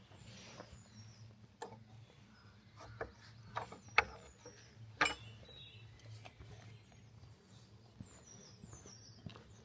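Footsteps on snow, a few irregular crunching steps, the loudest about four and five seconds in, with small birds chirping in short high calls throughout.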